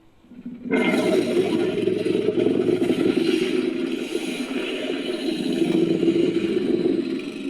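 Made-up sea-monster roar sound effect, built from a reworked Megalodon roar: one long, low, rasping roar. It starts less than a second in, holds for about six seconds and fades near the end.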